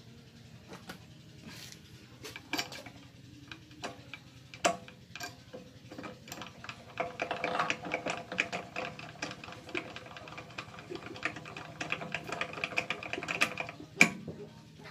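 Small metal parts being handled by hand: scattered clicks, then a few seconds of fast clicking and rattling as a lathe drill chuck is turned in the hand, and one sharp metal knock near the end.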